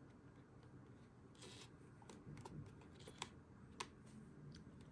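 Faint clicking and a brief whir from a Canon camera lens's zoom motor as it drives the zoom, with a few sharp ticks, the clearest about three and four seconds in. The owner thinks the lens motors are shot.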